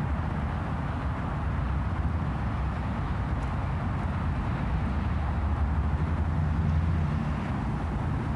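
Steady low outdoor rumble with an even hiss over it and no distinct events.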